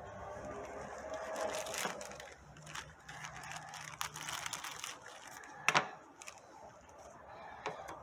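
Rustling and scattered clicks of a new accelerator pedal and its packaging being handled and opened, with one sharper click near the six-second mark.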